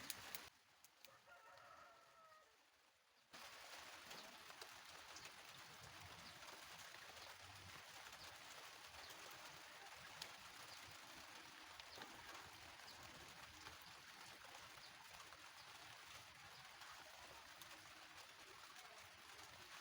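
Faint rooster crow about a second and a half in, then steady low hiss of near silence.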